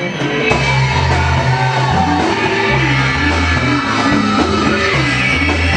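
Loud rock music played by a band. It comes in about half a second in, with heavy bass notes changing every half second or so and a melody line moving above them.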